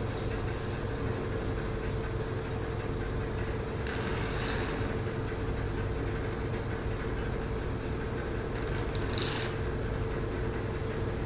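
Hydrodermabrasion facial machine running with a steady hum from its vacuum pump, while the handle's suction gives three short hisses: at the start, about four seconds in and about nine seconds in.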